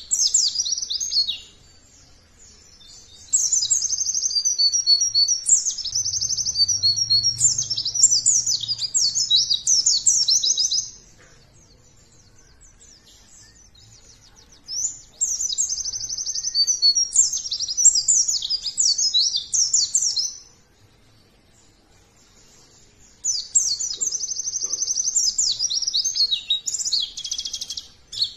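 White-eye (pleci) in full song: long phrases of rapid, high twittering chirps and trills lasting several seconds each, with pauses of a few seconds between them.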